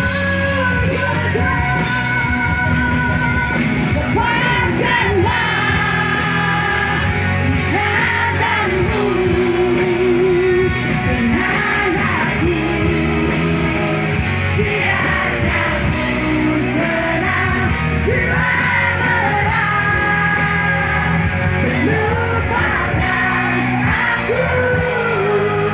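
Live rock band performance: a woman sings the lead melody, with vibrato on held notes, over electric guitars and the band.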